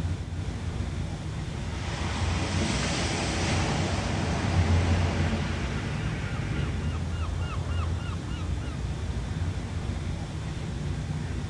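Ocean waves washing on the shore, with a wave surging up about two seconds in and easing off. Past the middle, a bird calls in a quick run of about nine short notes.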